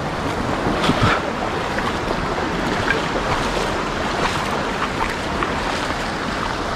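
Mountain stream water rushing steadily, with a few short sharp sounds over it, the clearest about a second in.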